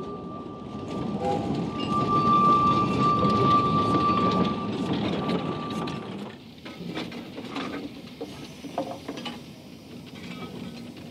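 Narrow-gauge steam train passing close, its carriage wheels rumbling on the rails with a steady high squeal over them. About six seconds in this gives way to a quieter scene of a second steam train approaching, with light clicks and knocks.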